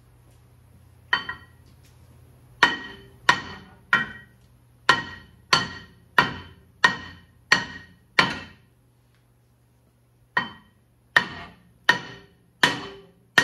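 Hammer blows on a Ford F-150's rust-seized rear brake rotor, knocking it loose from the hub. About ten ringing metal strikes come at an even pace, then a pause of about two seconds, then five more.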